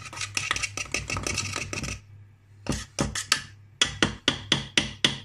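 Hand wire whisk beating cake batter in a stainless steel pot, its wires clattering against the metal sides: a fast, dense rattle for about two seconds, a short pause, then separate strokes, settling into about four a second near the end.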